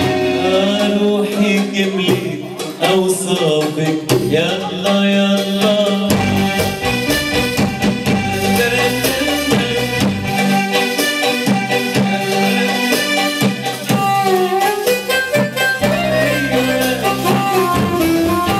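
Live Arabic pop band music with keyboard melody over hand-drum percussion, heard from the dining room.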